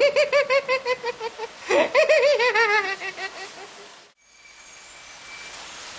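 High-pitched villain-style laugh in two bouts, each a quick run of 'ha-ha' pulses falling in pitch. About four seconds in it cuts off, and a steady rain hiss follows.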